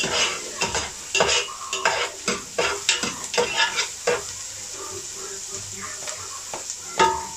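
Garlic, onion and ginger sizzling in oil in a non-stick pot while a spatula stirs and scrapes them in quick strokes: the sauté stage at the start of tinola. The stirring stops after about four seconds, leaving the steady sizzle, and a single sharp knock with a short ring comes near the end.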